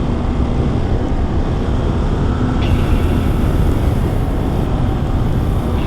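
Kawasaki KLR650 single-cylinder motorcycle running steadily at road speed, largely covered by loud, steady wind rush on the microphone.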